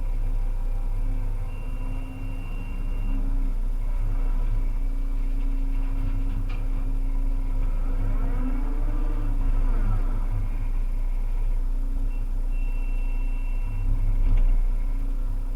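Volvo EC300EL excavator's diesel engine and hydraulics running steadily, with a whine that rises and falls in pitch about halfway through as the machine works. A thin high tone sounds briefly twice.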